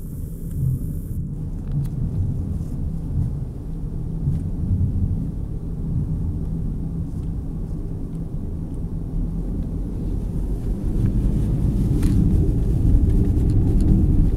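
Low, steady rumble of a car's engine and tyres on a snow-covered road, heard inside the cabin, growing louder over the last few seconds.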